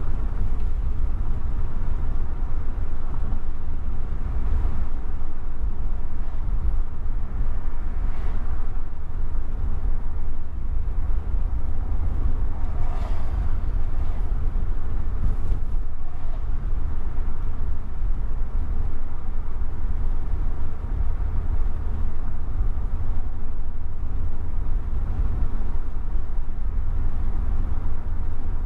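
Steady low rumble of a car being driven, road and engine noise picked up by a dashcam, with a few brief passing swells, the clearest about halfway through.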